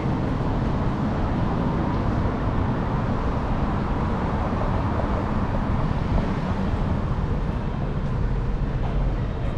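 Steady traffic noise from cars driving along a city boulevard.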